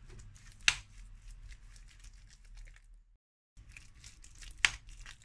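A fork mashing and stirring mayonnaise-dressed potato salad in a china plate: soft squishing and scraping, with a sharp clink of the fork against the plate under a second in and again near the end. The sound drops out completely for a moment a little past halfway.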